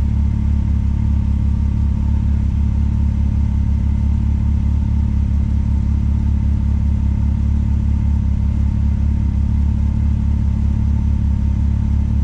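Can-Am Maverick X3 side-by-side running steadily on the move: an even, low rumble that holds at one level throughout.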